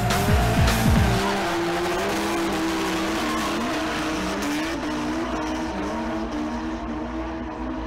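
A heavy music beat cuts out about a second in. After that, drift cars' engines rev up and down with tyre squeal as they slide through a corner.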